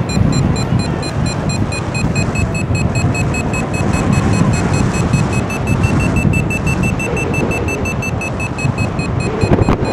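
Airflow buffeting the microphone of a paraglider in flight, a steady rushing wind noise. Through it, a quick, steady, high electronic beeping, typical of a paragliding variometer signalling lift, its pitch rising a little about halfway through and dropping back near the end.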